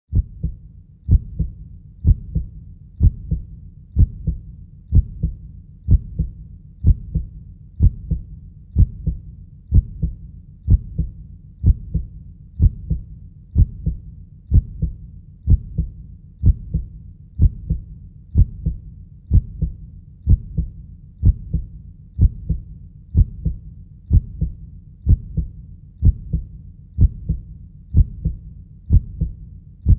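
Heartbeat sound effect: a steady lub-dub, each beat a pair of deep thumps close together, repeating about once a second at an even resting pace.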